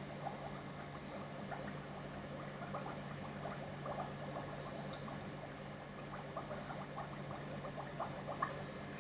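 Water trickling and pattering down an aquarium aquascape waterfall, a continuous spatter of small drops over a steady low hum.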